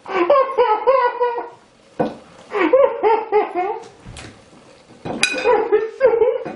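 High-pitched laughter in bursts, with sharp clinks of metal cutlery against a plate and glass; the loudest clink rings on briefly about five seconds in.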